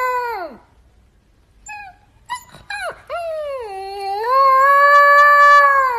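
Alaskan Malamute puppy howling. A first howl falls away within the first second; after a pause come a few short yips, then a second long howl that dips, rises, holds and sinks again at the end.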